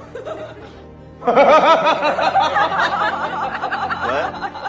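Music with a high-pitched, rapid chuckling laugh over it, starting about a second in and fading near the end.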